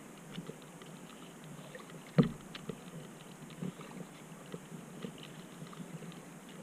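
Small irregular splashes and water lapping at a kayak on calm water, with one sharp knock about two seconds in.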